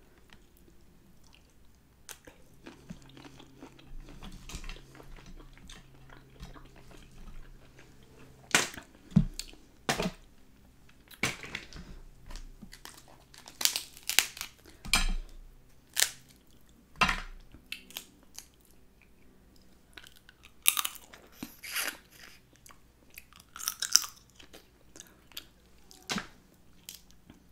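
Cooked snow crab legs cracked and broken apart by hand, a scattered series of sharp shell cracks, with chewing of seafood in between.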